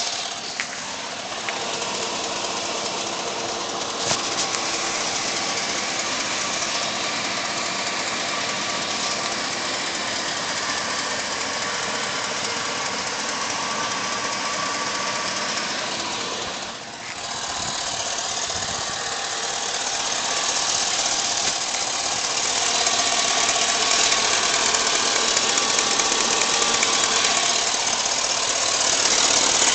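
Car engine running warm at operating temperature with a knock that the owner calls bad and places on the driver's side. It dips briefly about two-thirds of the way through, then runs somewhat louder.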